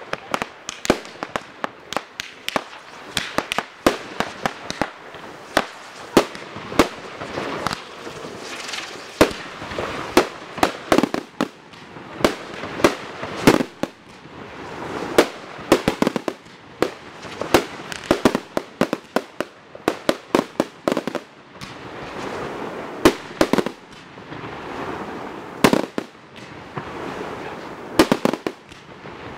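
Professional fireworks display: aerial shells bursting in a rapid, uneven run of sharp bangs, several a second, over continuous crackling, with brief lulls.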